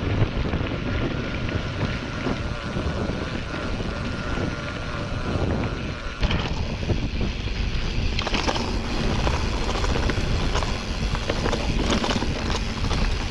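Mountain bike riding fast down a dirt forest trail: wind buffeting the camera microphone over the rumble of tyres rolling on the ground, with a faint steady high tone in the first six seconds or so. After an abrupt change about six seconds in, the bike clatters and rattles over bumps and roots.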